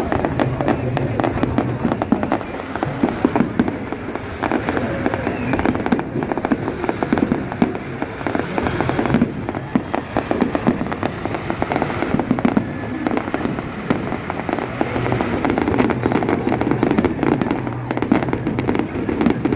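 Fireworks display going off continuously, with a dense run of rapid bangs and crackling pops over a steady low rumble.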